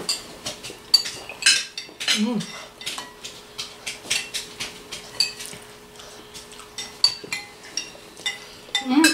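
Metal spoons and forks clinking and scraping against ceramic bowls and plates as several people eat, with many short, irregular clinks, some ringing briefly.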